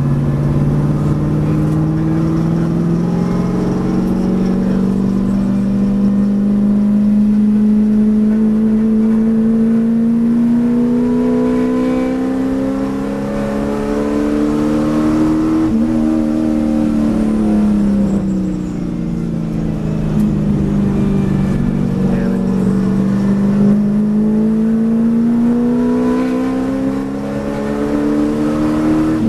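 Race car engine heard from inside the roll-caged cabin under hard acceleration on track, its pitch climbing slowly, falling away for a few seconds about halfway through, then climbing again.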